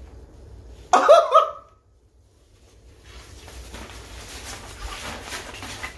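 A short, loud, high excited exclamation about a second in, its pitch sliding down. Later comes soft rustling as the fabric photo backdrop is shaken out and handled.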